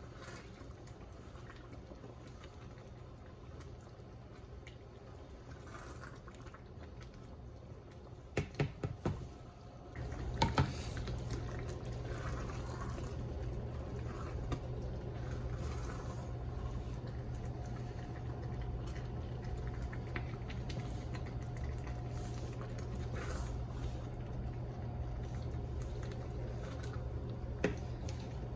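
Pot of rice porridge simmering and bubbling on low heat. A few quick clicks come about eight seconds in, and about ten seconds in a steady low hum starts and runs on under the bubbling.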